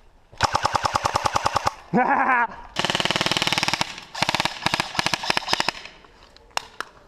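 Airsoft electric rifles firing on full auto: a burst of about ten rapid shots a second, then after a short break several more bursts of shots. The shots are quick, sharp and evenly spaced.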